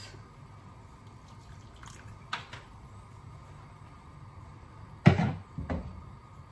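A loud sharp knock about five seconds in, followed by a lighter one, from kitchen handling such as a cupboard door shutting, with a faint click a couple of seconds earlier, over a steady low background hum.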